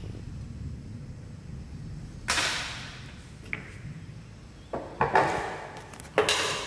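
Short clatters and knocks of metal tools, a steel funnel and packing rod, handled against the top of a melt flow index tester's barrel while it is loaded with plastic pellets. About four sharp sounds, the first and loudest about two seconds in and the rest near the end, over a low steady hum.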